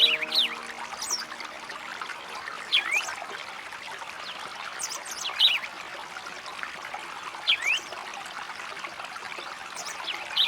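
Songbird calls: short bursts of quick, high whistled sweeps repeating every two to three seconds over a steady trickle of running water.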